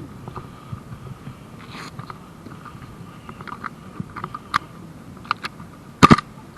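Small clicks and rattles of equipment being handled, with a loud, sharp clack about six seconds in.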